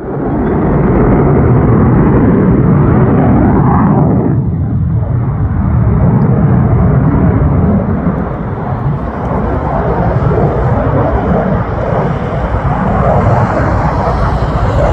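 Lockheed Martin F-22A Raptor's twin Pratt & Whitney F119 turbofan engines in flight: loud, steady jet noise, with a hollow sweep falling in pitch about four seconds in.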